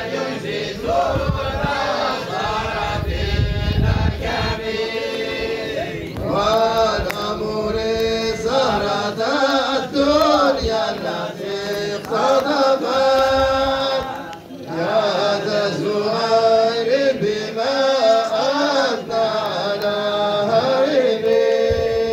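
Background music: a group of voices singing a chant, with long held, bending notes.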